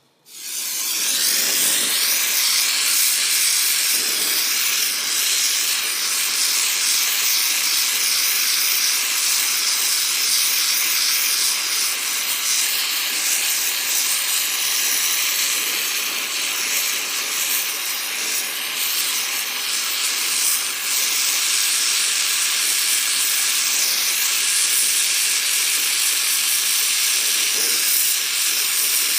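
Brazing torch flame hissing steadily while heating HVAC copper line joints; the hiss starts suddenly at the outset and holds loud and even.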